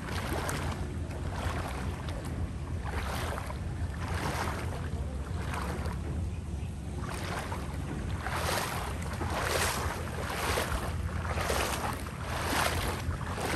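A small boat's motor running steadily at a low pitch while moving through floodwater. Over it is a rushing noise that swells and fades about once a second in the second half.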